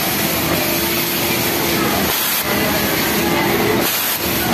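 Pegasus MX industrial overlock sewing machine running with a steady hum that stops briefly twice, as the seam is sewn in short runs. Under it, a dense steady hiss of garment-factory machinery.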